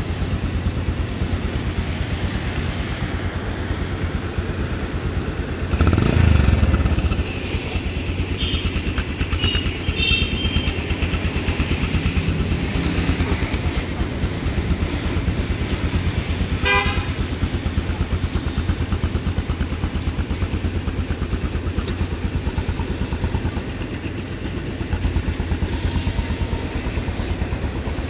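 Bajaj Pulsar 150's single-cylinder engine idling steadily through its muffler, the exhaust note pulsing evenly, with a short louder swell about six seconds in.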